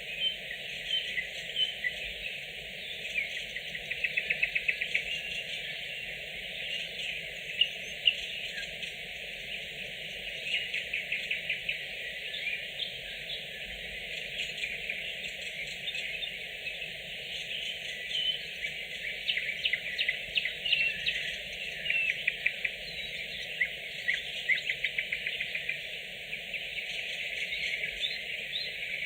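Nightingales singing: varied whistled notes and fast trills of rapidly repeated notes, one phrase after another.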